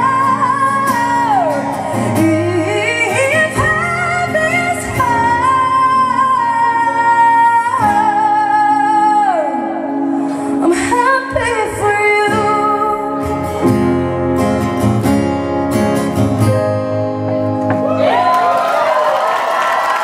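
Female vocalist singing live over a strummed acoustic guitar, holding long notes that slide between pitches. About two seconds before the end the song finishes and the audience starts applauding.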